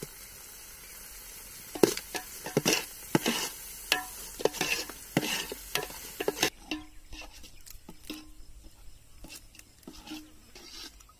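A spoon stirring and scraping thick tomato-chilli sauce in a metal pot, in irregular strokes. It stops after about six and a half seconds, leaving only faint light clicks.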